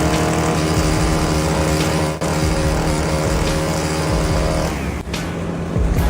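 Motor of a long, slender power saw running steadily at speed while it cuts, its tone breaking off about five seconds in.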